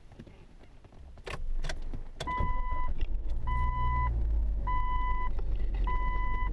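Car being started: a couple of clicks, then about two seconds in the engine starts and runs at idle. Over it an in-car warning chime beeps steadily, about once a second.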